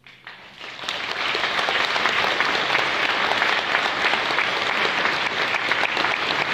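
Audience applauding: the clapping starts suddenly and builds within the first second into steady, dense applause, as the string quartet's last low note dies away.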